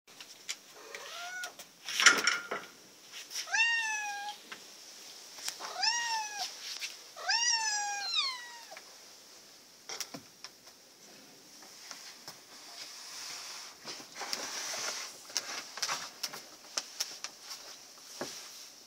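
Domestic cat meowing about five times in the first nine seconds, each call rising then falling, with a sharp knock about two seconds in. Scattered clicks and soft rustling follow.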